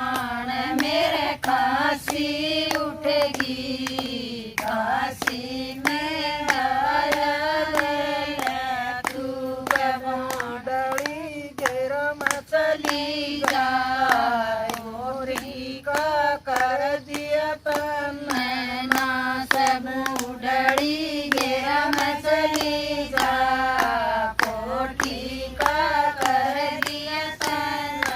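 Women singing a Haryanvi folk bhajan unaccompanied, their sung line wavering with ornaments, over a steady rhythm of hand claps.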